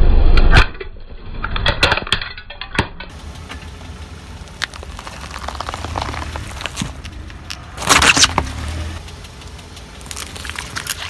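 Car tyre rolling slowly over objects on asphalt, crushing them, over the low rumble of the car. A loud thump at the start is followed by sharp cracks about two seconds in as hard plastic gives way, and there is a loud crunching squash about eight seconds in and a smaller one near the end.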